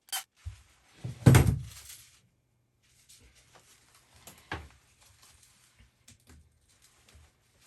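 Handling noises while working on wiring: one loud thunk about a second in, a lighter knock near the middle, and small scattered clicks over a low steady hum.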